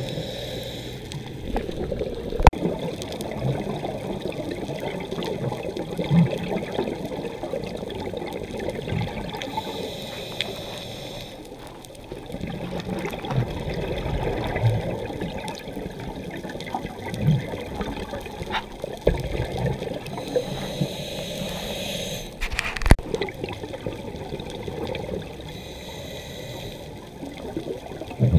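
Scuba diving sound heard underwater through a camera's waterproof housing: bursts of bubbling hiss from a diver's exhaled regulator bubbles about every ten seconds, over a steady muffled water rumble, with a couple of sharp clicks.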